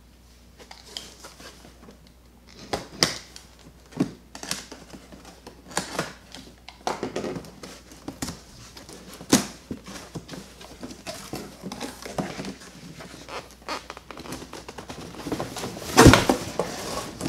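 A cardboard box being opened by hand: scattered scrapes, taps and rustles of hands and a box cutter on cardboard, with one louder thump and scrape near the end as the box lid is tipped up.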